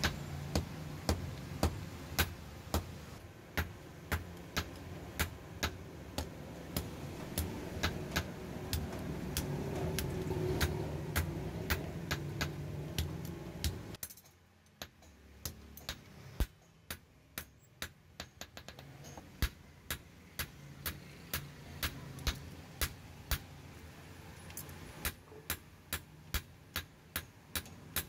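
Hand hammer striking a steel blade on an anvil block in steady blows, about two a second, each a sharp metallic clink. The blows come a little quicker near the end.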